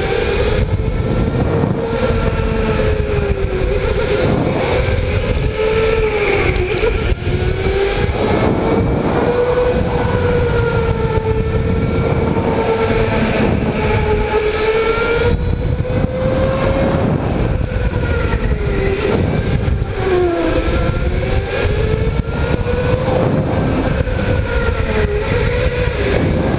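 Electric go-kart motor whining under the driver, its pitch dipping several times as the kart slows for corners and climbing again as it accelerates down the straights, over a steady low noise from the kart running on the track.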